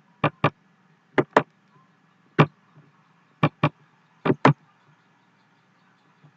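Sharp clicks of a computer mouse and keyboard while editing text: nine in the first four and a half seconds, mostly in quick pairs, over a faint steady hum.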